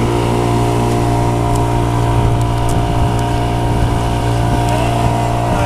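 Small boat's motor running steadily at cruising speed, a constant drone.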